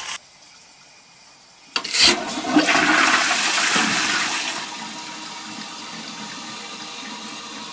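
ALFA toilet cistern being flushed: a sharp click of the lever about two seconds in, then a rush of water that eases after a couple of seconds into the steady, quieter hiss of the tank refilling.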